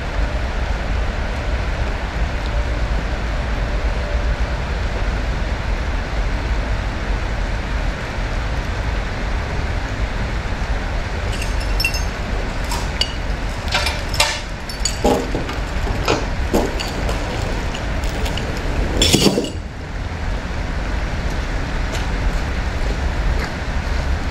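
Heavy truck's diesel engine idling with a steady low rumble. About halfway through comes a scattered run of metallic clinks and knocks, the loudest a brief clatter near the end of the run.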